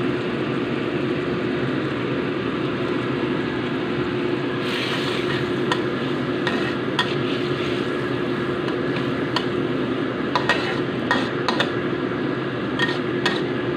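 Metal spatula stirring and scraping a simmering chili-tomato sauce in a wok, over a steady sizzle and low hum. Sharp clicks of the spatula against the wok start about four seconds in and come in quick clusters near the end.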